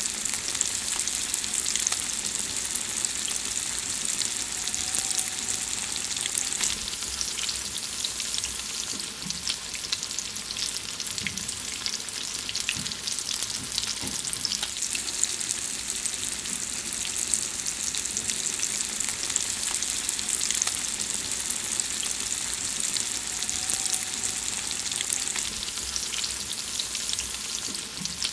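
Food frying in hot fat: a steady, bright sizzle with dense, irregular crackling pops throughout.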